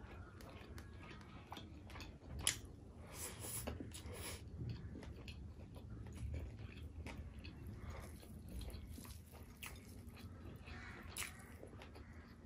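Close-miked chewing of a mouthful of fried fish and rice eaten by hand, with many small mouth clicks and one sharper click about two and a half seconds in.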